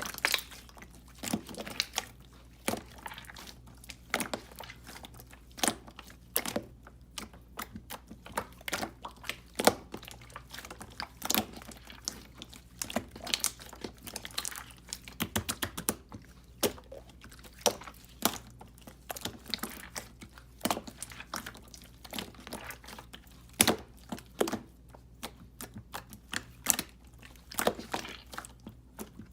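Irregular sharp clicks and taps, with a quicker run of clicks around the middle, over a faint steady hum.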